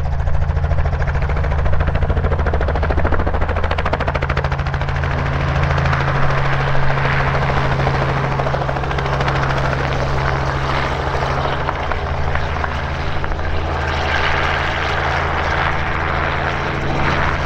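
Robinson R44 Raven II helicopter lifting off and flying away low: its six-cylinder Lycoming piston engine and main rotor make a steady drone with a rapid blade chop. The tone shifts a few seconds in as the helicopter comes off the ground.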